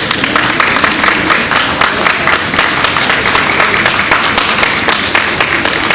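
Audience applauding, a dense patter of many hands clapping that starts just before and carries on steadily.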